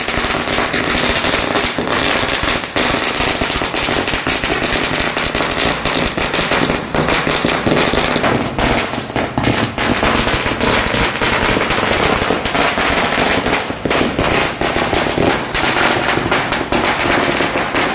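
A long string of firecrackers going off: a rapid, unbroken crackle of bangs that keeps up without a pause.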